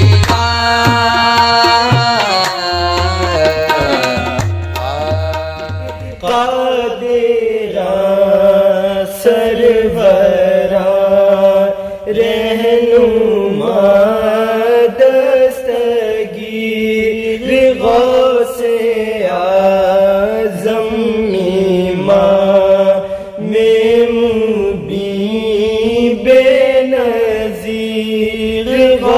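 Qawwali music with a drum beat that ends about six seconds in; then voices sing a slow devotional kalaam with long, gliding held notes and no drums.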